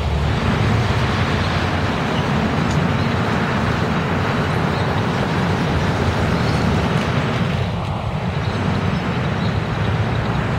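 Steady city street traffic: a city bus's engine running as it pulls through an intersection, with taxis and other cars driving past.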